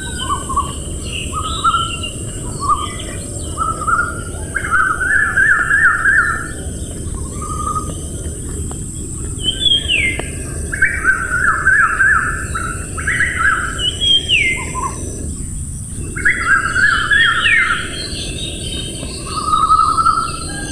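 Songbirds singing in a forest: repeated phrases of quick notes and short rising whistles, several birds overlapping, over a steady low rushing background and a thin high hiss.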